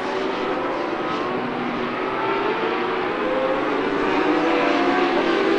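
Superbike racing motorcycle engines running at high revs, their pitch sagging and then climbing again near the end.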